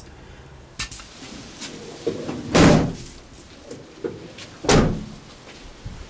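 Two doors of a Mercedes Sprinter van slammed shut about two seconds apart, with a few lighter clicks and knocks between them.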